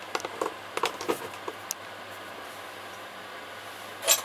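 A few light knocks and taps of things being handled over a steady low hum, with a sharper clatter of clicks near the end.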